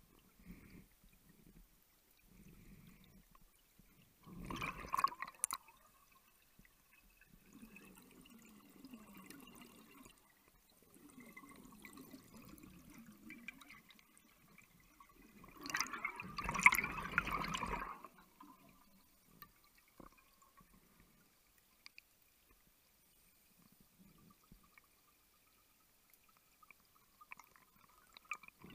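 Underwater: a diver's gas escaping as bubbles in two gurgling bursts, a short one about four seconds in and a longer, louder one about halfway through, with faint low rumbling in between.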